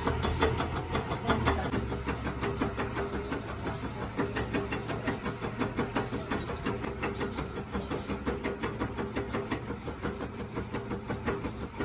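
Rapid, evenly spaced metal-on-metal strikes, about five a second, each with a high ringing.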